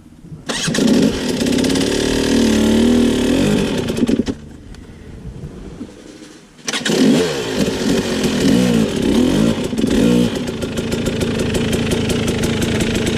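Off-road motorcycle engine revving in two long bursts, its pitch rising and falling as the rider works the throttle trying to climb a rocky waterfall, with a short lull about four seconds in.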